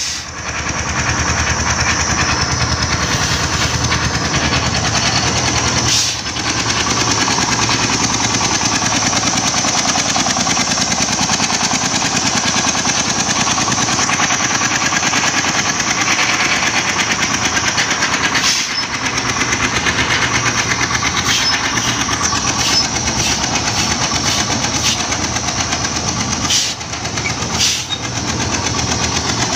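Turbocharged 35 hp diesel engine of a homemade công nông farm vehicle running steadily, with a fast, even beat and a few brief dips in level.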